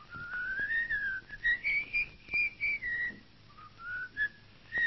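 A person whistling a tune: a single thin melody of short notes that rise and fall, with a short break a little past the middle before it picks up again.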